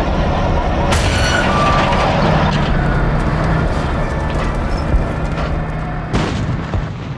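A loud, dense booming rumble like an explosion, with two sharp cracks, one about a second in and one about six seconds in. It slowly dies away near the end.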